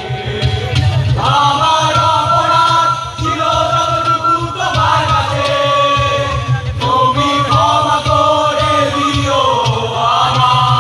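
Live band music: a held, gliding melody on violin over acoustic guitar and drums, loud and continuous.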